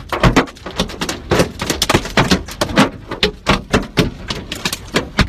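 Hailstones pelting a car's roof and windshield, heard from inside the cabin: a dense, irregular drumming of sharp knocks, several a second. The hail is heavy enough to crack the windshield and total the car.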